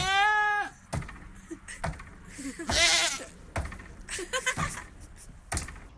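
Goat bleating twice: a quavering call right at the start and another about three seconds in, with a few sharp knocks in between.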